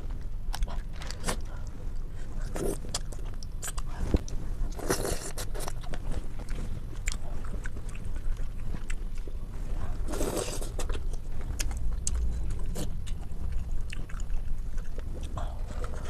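A person eating close to the microphone: chewing and biting, with scattered sharp clicks and short smacking noises.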